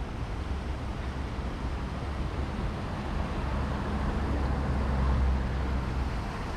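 City street traffic: a steady hum of passing vehicles, with a low engine and tyre rumble that swells about five seconds in and then eases off as a vehicle goes by.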